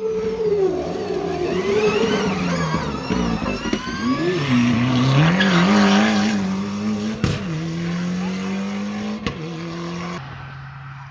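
Rally car engine revving hard, its pitch dropping and climbing several times as the throttle is worked, with two sharp cracks about two seconds apart. Near the end the sound changes suddenly to a lower, steadier engine tone.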